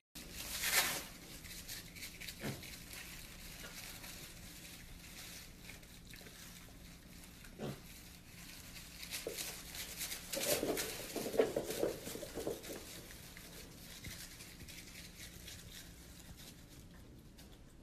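Mini pig rustling and tearing at shredded paper, with crackling and crinkling throughout. A short run of pig grunts comes a little past the middle.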